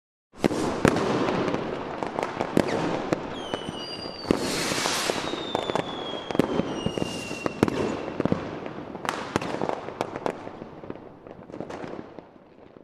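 Fireworks: a dense run of sharp bangs and crackling, with a few whistles slowly falling in pitch in the middle, dying down toward the end.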